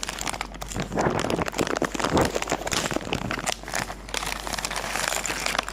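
Packaging crinkling and rustling in an irregular run as mil-spec connector parts are handled and unpacked.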